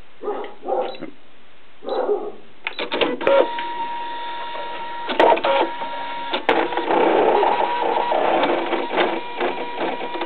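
Brother ScanNCut cutting machine running its cutting job: a few short sounds in the first two seconds, then the carriage motors start with a steady whine and clicks about three seconds in. The whine gets louder and busier about halfway through as the head moves the blade around the gasket sheet.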